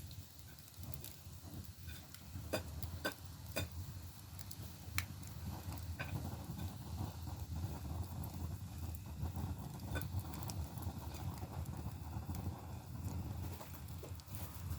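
Split, dried bamboo firewood burning in a Korean agungi firebox: a steady low roar of the fire with scattered sharp crackles and pops, several close together in the first few seconds.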